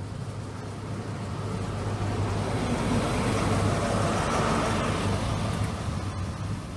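A First Great Western HST running past the platform. The Class 43 diesel power car's engine hum and the rumble of wheels on rail build as it draws level, peak about three to five seconds in as the coaches follow, then ease slightly.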